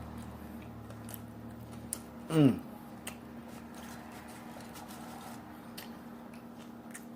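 A person chewing a mouthful of cheeseburger close to the microphone, with scattered faint wet mouth clicks. About two and a half seconds in comes one short, loud vocal sound that falls steeply in pitch.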